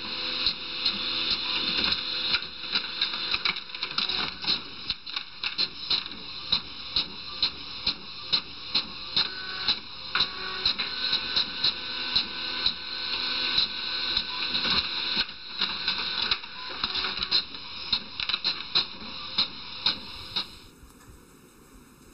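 Desktop fax machine printing out a page: a steady mechanical whir with frequent sharp clicks, stopping near the end.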